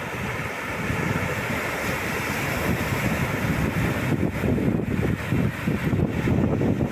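Atlantic surf washing onto a beach, a steady wash of waves with wind buffeting the microphone, the low rumble growing rougher in the second half.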